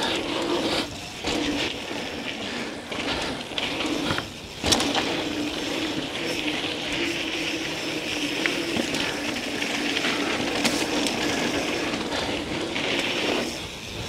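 Mountain bike rolling fast down a dirt trail: knobby tyres running over packed dirt and leaf litter as a steady rush, with a sharp knock from a bump about four and a half seconds in.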